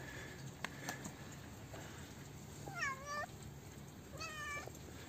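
A cat meowing twice, two short calls about a second and a half apart in the second half; the first dips in pitch and turns up at its end.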